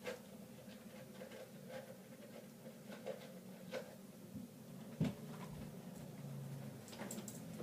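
Scattered light clicks and taps from handling small objects, with one louder knock about five seconds in, over a low steady hum.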